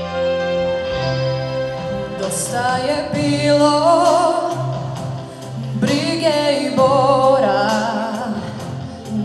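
A pop song with steady instrumental chords. About two seconds in, a singer comes in with long held notes that waver with vibrato, with a short break about halfway through.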